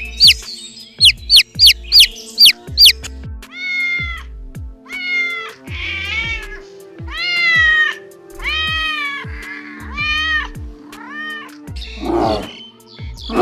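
A domestic cat meowing about seven times in a row, each meow rising and falling in pitch, over background music with a steady beat. A quick run of high, falling chirps comes before the meows, and a rough growl starts near the end.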